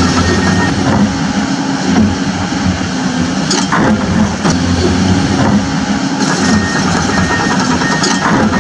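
Huina RC toy excavator working: a steady engine-like hum with a thin high motor whine that comes and goes as the arm moves. A few sharp plastic clicks and knocks come from the toys, about three and a half, four and a half and eight seconds in.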